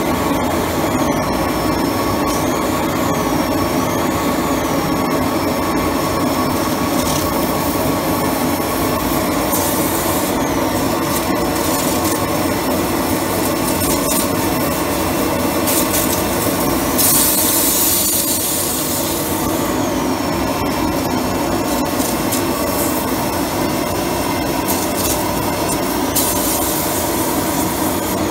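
Steady rushing hiss of steam jetting from a pressure-washer steam cleaner, a mono-tube boiler fired by a rosebud torch, with the pressure washer running underneath. About seventeen seconds in, the hiss briefly gets louder and brighter.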